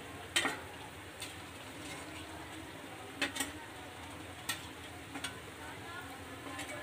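Urad dal vadas sizzling steadily in hot oil in a kadhai, with a few sharp clinks of a slotted steel skimmer against the kadhai and a steel plate as the fried vadas are lifted out.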